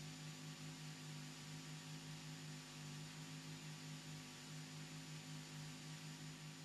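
Faint steady electrical hum with a light hiss.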